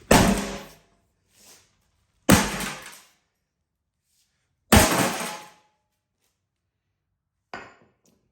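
An 8-pound sledge maul striking a small, cheap safe three times, about two seconds apart, each blow ringing briefly before dying away, then a lighter knock near the end. The blows break the safe open.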